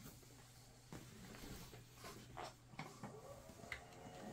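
Near silence: the faint steady hum of a running 2001 Apple Power Mac G4, with a few faint clicks and taps.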